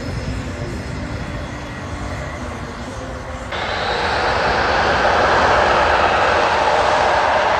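Saab JAS 39 Gripen fighter's jet engine running as the jet moves along the runway. The sound is steady, then jumps abruptly to a louder, harsher rush about halfway through.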